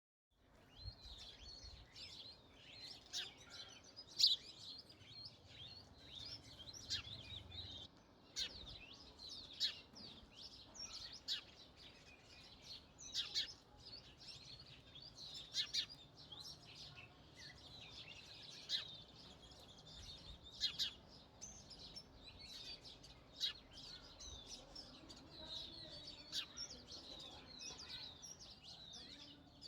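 Many sparrows chirping together in dense, overlapping high chirps, with a sharper, louder single chirp every second or two.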